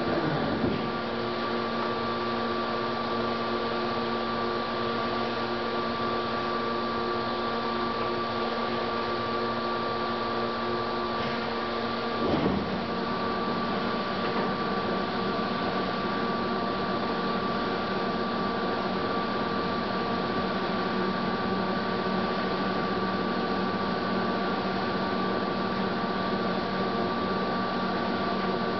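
Lodge & Shipley Magnaturn engine lathe running with its carriage under power feed off the lead screw: a steady mechanical hum with gear whine. About twelve seconds in there is a brief knock, and some of the lower tones drop out.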